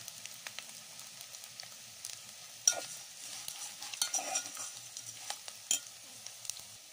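Small omena fish frying in oil in a metal sufuria, a steady faint sizzle, while a metal spoon stirs them and scrapes and clicks against the pot. The loudest scrape comes a little under three seconds in, with more around four seconds and near six. The fish are at the browning stage of frying.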